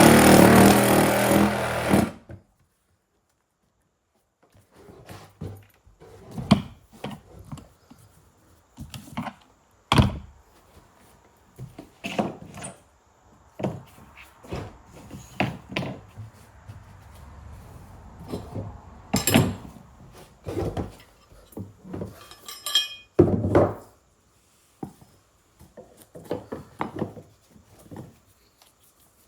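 A reciprocating saw cutting wood stops about two seconds in, followed after a short pause by scattered knocks and thunks of wood and tools being handled.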